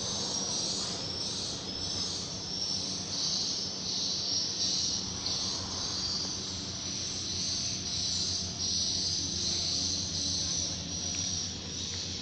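High-pitched insect chirping, pulsing about twice a second, over a low steady hum.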